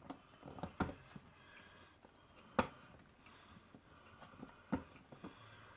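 Small clicks and taps as the body shell of a Dapol Class 121 model railcar is handled and pressed back onto its chassis, with three sharper clicks: about a second in, near the middle, and near the end.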